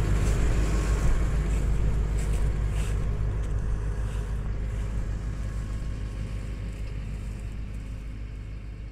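Tractor diesel engine running steadily, growing gradually fainter.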